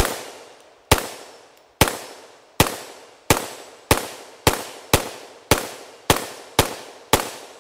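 CZ Bren 805 PS1 5.56mm pistol fired semi-automatically through its muzzle brake, twelve shots each ringing out briefly. The pace quickens from about one shot a second to about two a second. These are the last rounds of a 30-round magazine.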